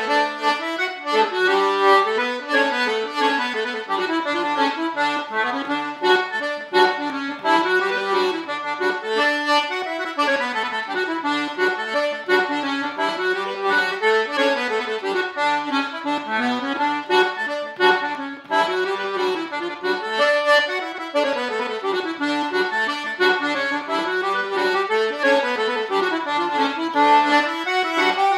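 Button accordion playing a quick-moving melody solo, the notes changing rapidly over steady lower accompanying notes, with no pause.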